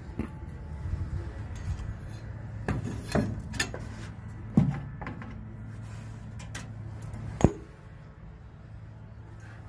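A scatter of sharp knocks and taps over a steady low hum, the two loudest about four and a half and seven and a half seconds in.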